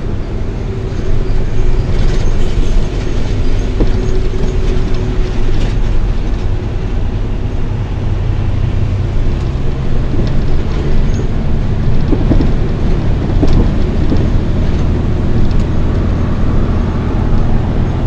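A heavy vehicle's engine running steadily while driving, with road rumble.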